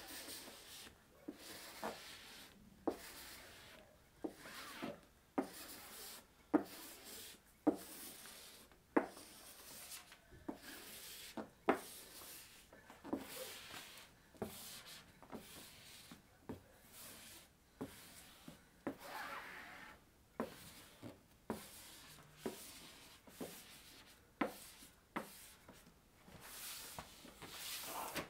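Hand squeegee swept in repeated strokes over a printed pinball cabinet decal to smooth it down: a long run of short rubbing swishes, roughly one a second, each starting with a sharp edge.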